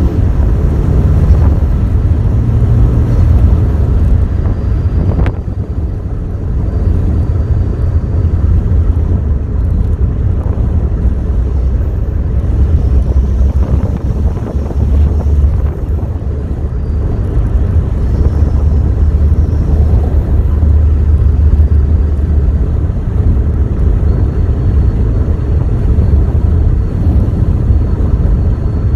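Saab 9-5 driven over a rough gravel road, heard from inside the cabin: a steady low rumble of tyres, suspension and engine. A single sharp knock comes about five seconds in.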